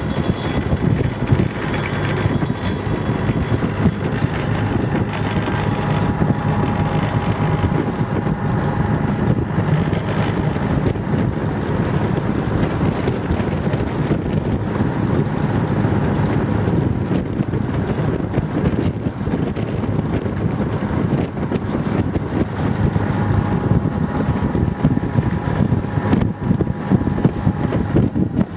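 Wind buffeting the microphone aboard a boat on open water: a steady low rushing noise that swells and dips in gusts.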